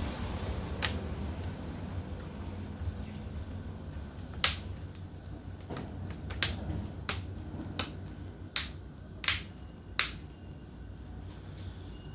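Plastic screen bezel of an Asus X507U laptop being pressed home, its clips snapping in with sharp clicks: one about a second in, then a regular run of about eight, under a second apart, from about four seconds in, over a steady low background noise.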